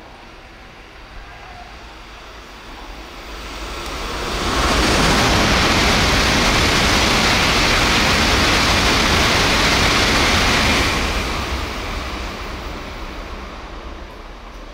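N700-series Shinkansen passing through at high speed: the rushing noise builds over a couple of seconds, holds loud and steady for about six seconds as the train goes by, then fades away.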